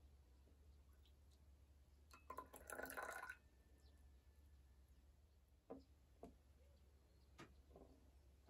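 Tea poured from a porcelain pitcher into a ceramic cup for about a second, about two seconds in. Then three light clinks of porcelain set down on the tray.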